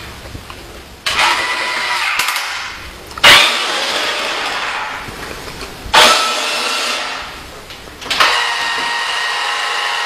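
Remote-control toy forklift's small electric drive motor and gears whirring in four short bursts about two seconds apart, each starting suddenly as the toy is driven and turned.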